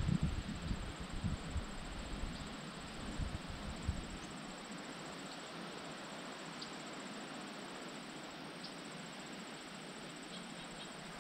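Steady high-pitched insect trill over a soft outdoor hiss, with low thumps and rumble on the microphone for the first four seconds.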